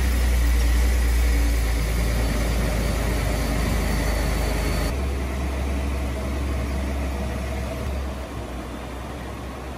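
Ford F-150 pickup's engine running steadily with a low rumble, growing fainter over the last couple of seconds as the truck moves away.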